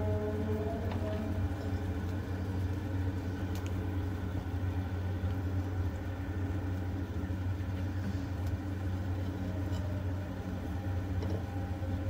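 Steady low machine hum, with a few faint knocks of a spatula against a clay cooking pot.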